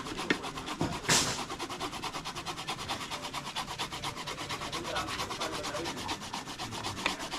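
Fast, even scraping or rubbing strokes, about six a second, with one louder scrape about a second in.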